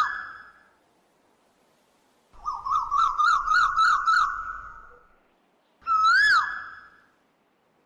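Bird-like whistled calls: a rapid warbling trill of about seven notes, then, near the end, a single whistle that rises and falls.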